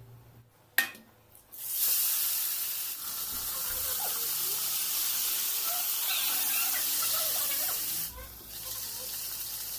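A steady, loud hiss that starts suddenly after a single click about a second and a half in, then drops to a weaker hiss near the end.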